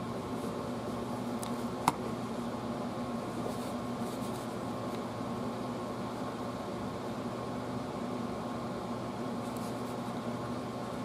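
Steady hum of a room air conditioner running, with a single sharp click about two seconds in.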